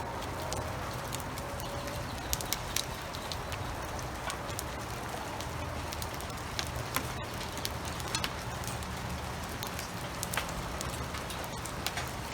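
Rain falling steadily, with many scattered drops ticking sharply on a surface close by.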